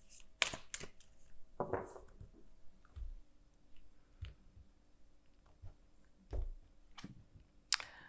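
Oracle card deck shuffled by hand: scattered soft snaps and taps of the cards, with a few dull thumps in the middle as the deck is handled.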